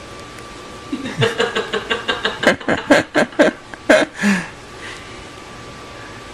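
A person laughing: a quick run of short, high-pitched laughs starting about a second in, turning louder and slower before stopping a little after four seconds.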